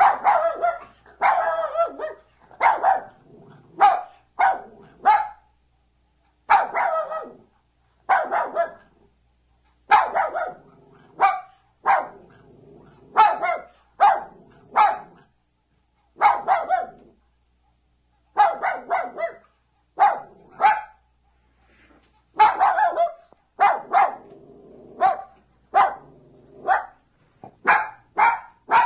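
A dog barking repeatedly with a fairly high-pitched bark, in runs of two to four barks separated by short pauses.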